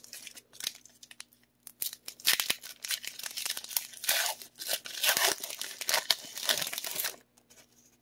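Foil wrapper of a Pokémon booster pack being torn open by hand: a few light crinkles, then about five seconds of dense crinkly ripping and crackling that stops abruptly near the end.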